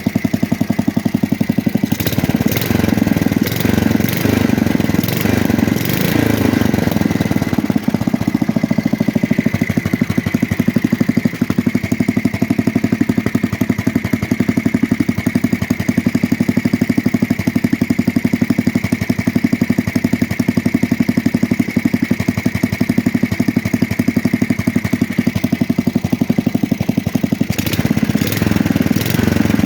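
Small single-cylinder garden tractor engine from a 1966 Custom 6, just rebuilt and hand-started by pulling on its pulley, running steadily out of the tractor. A few sharp clicks come through about two to seven seconds in and again near the end.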